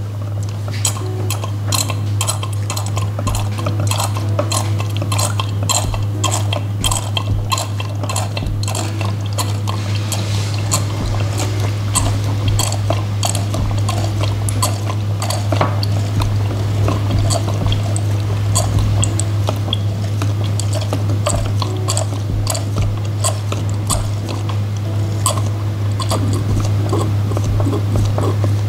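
Ink pouring from an upturned bottle into a printer's small ink tank, with a continuous run of irregular gurgles and drips over a steady low hum.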